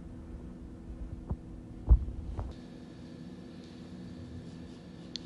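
A few dull knocks and bumps over a low steady hum; the loudest knock comes about two seconds in. A faint high whine comes in about halfway through.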